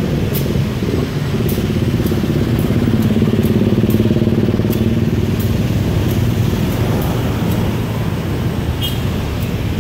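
Diesel engine of a CC203 locomotive idling with a steady low drone that swells slightly a few seconds in. Faint sharp ticks sound over it about once a second.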